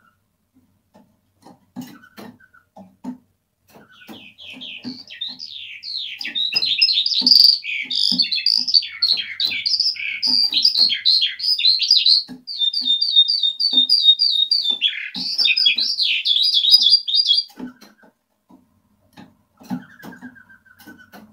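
Caged Eurasian skylark singing: a rapid, varied warbling song of high trills and chirps that starts about four seconds in and runs for about thirteen seconds, with soft knocks scattered throughout.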